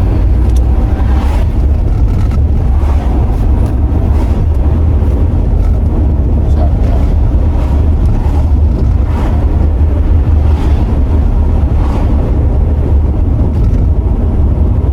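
Mercedes R129 SL500 driving along: a steady, loud low rumble of engine, tyres and wind noise inside the moving car, with faint swishes now and then.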